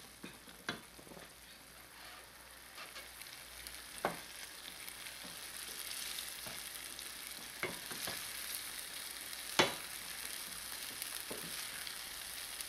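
Beef fillets sizzling as they are sealed in a stainless steel pot of fried onion and ají, stirred with a wooden spoon. The sizzle is steady and grows a little louder about halfway, with several sharp knocks of the spoon against the pot, the sharpest about ten seconds in.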